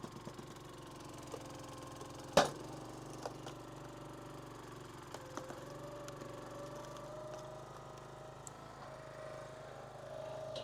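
An engine running steadily, with one loud sharp knock about two and a half seconds in and a few lighter clicks. A faint tone slowly rises in pitch in the second half.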